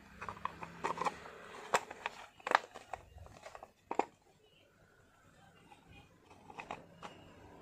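Hard plastic clicks and scraping as the lid unit of a Prestige pull-cord hand chopper is pressed and twisted by hand to lock its housing shut, with several sharp snaps, the loudest about two and a half seconds in.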